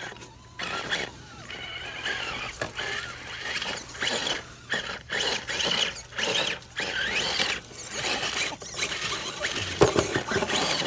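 Electric motors and gearboxes of radio-controlled rock crawlers whining in short stop-start bursts, the pitch wavering as they are throttled on and off over rocks. There is a sharp knock near the end.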